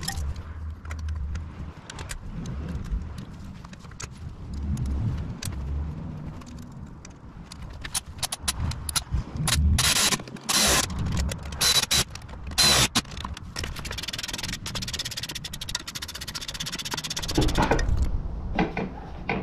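Metal clinks and rattles of a steel mounting bracket and its bolts being handled and fitted by hand to a motorcycle's pannier rack. A cluster of louder rattling comes about halfway through, then a run of rapid fine ticking toward the end.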